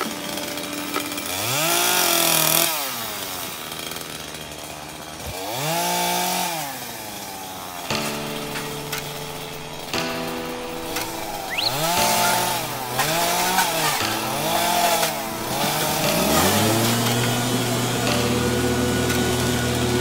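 Chainsaw engine revving up and dropping back several times, with three quick revs in a row about two-thirds of the way through. Near the end it is held at a steady high speed for the last few seconds.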